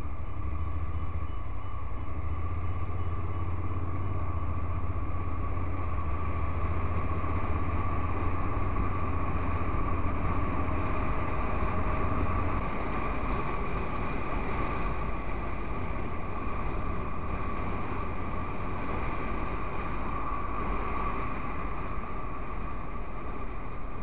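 Honda NC750X's parallel-twin engine running while riding, heard through a bike-mounted camera with wind and road noise. Its low engine note fades about halfway through.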